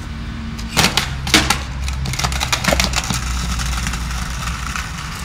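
Two sharp skateboard clacks about a second in, then a steady low rumble of the wheels rolling over stone paving.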